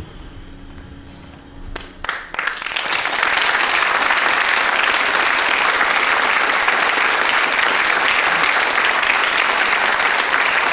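Theatre audience applauding: clapping breaks out about two seconds in over a faint low hum, swells within a second and then holds steady and loud.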